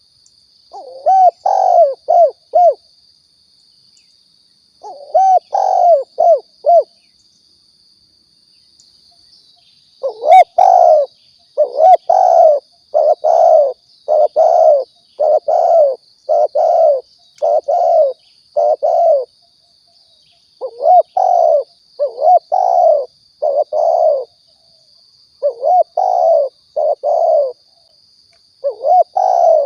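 Spotted dove (tekukur) cooing in repeated phrases of three to five low notes, a dove call recorded for luring. Two phrases come in the first seven seconds, then the phrases follow one another about every second. A faint steady high tone lies underneath.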